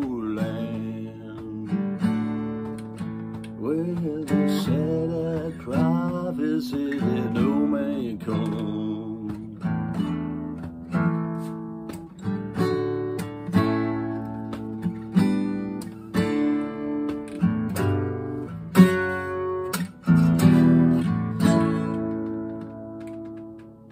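Acoustic guitar strumming chords about once a second, with a wavering wordless sung line over the first several seconds. The strumming carries on alone and fades near the end.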